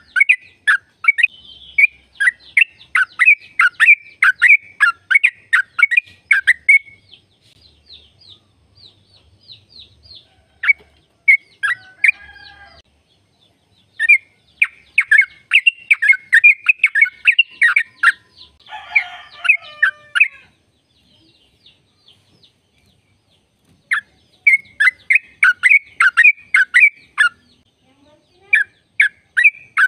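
Yellow-vented bulbul (trucukan) singing its rapid rolling song, fast runs of sharp chirping notes. The song comes in bouts of a few seconds, with pauses at about 7, 21 and 28 seconds in. A rougher chattering call breaks in briefly twice.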